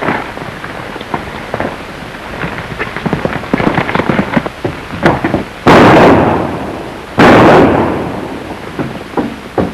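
Two gunshots about a second and a half apart, each a sudden loud blast that fades out over about a second, on an old 1930s film soundtrack. Scattered knocks and scuffling come before them.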